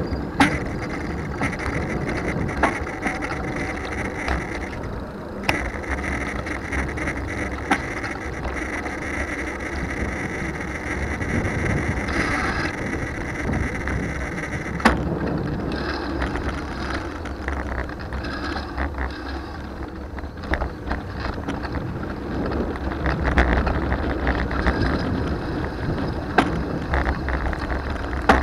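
A 2020 Trek Dual Sport 4 bicycle being ridden: its drivetrain ticks and rattles mechanically over steady tyre and wind noise. Scattered sharp clicks and knocks come at irregular intervals.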